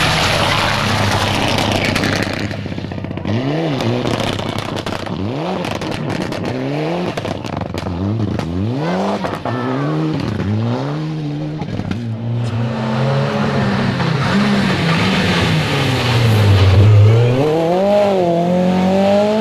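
Rally cars at full stage speed going past one after another. A loud rush as the first passes close, then engines revving hard through repeated gear changes, the pitch climbing and dropping again and again, with another climbing rev near the end.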